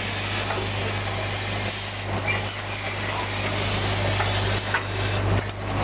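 Cat litter packing machine running: a steady low hum under dense mechanical noise, with a few short knocks near the end.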